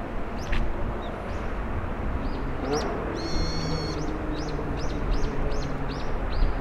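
Gulls calling: short, high calls scattered at first, then a run of about two calls a second in the second half, over a steady low rumble.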